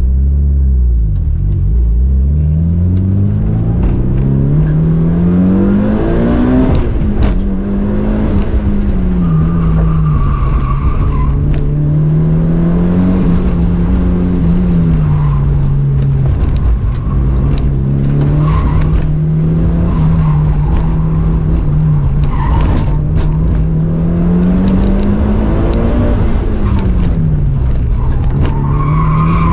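A car engine accelerating hard from low revs for several seconds, then held at high revs, its pitch rising and falling as the car is driven.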